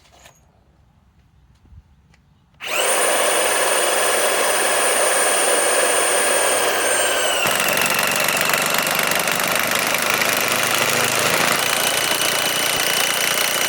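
Cordless impact wrench driving a large lag bolt into wood, starting nearly three seconds in and running without a break. About halfway through the high whine drops away and a deeper sound takes over as the bolt drives on.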